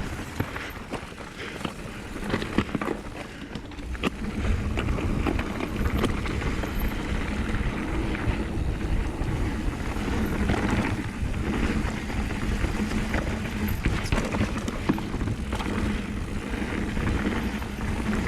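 Mountain bike riding fast down a rocky downhill trail: tyres clattering over rocks, with constant rattling knocks from the bike and wind buffeting the helmet camera's microphone. It gets louder about four seconds in.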